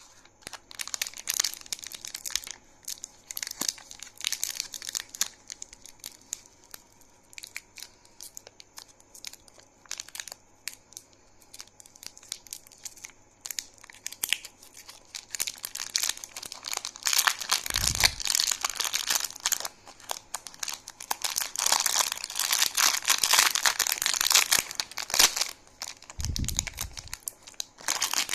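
Candy wrappers crinkling and tearing as sweets are unwrapped by hand, in bursts of crackly rustling, busiest in the second half, with a couple of dull thumps.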